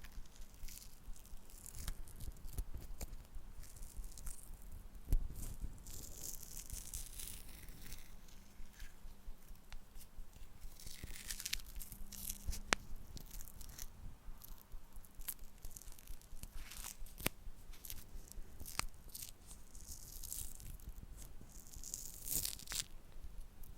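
Close-miked handling of small wooden objects: scattered sharp taps and clicks among soft, high, scratchy rustles and scrapes.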